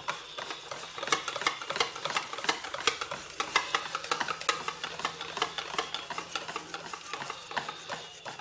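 Wire whisk beating thick martabak manis batter in a stainless steel bowl: rapid, irregular clinks of the wires against the metal, several a second, as baking soda is mixed into the rested batter.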